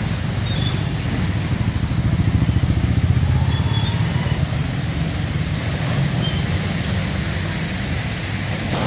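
Motorcycle and car traffic moving through a flooded street in heavy rain: a steady low rumble of engines and water, swelling a couple of seconds in.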